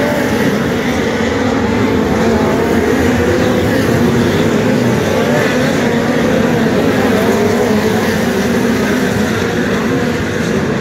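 Several speedway race cars lapping the track together: loud, continuous engine noise whose pitch keeps wavering up and down as the cars go round.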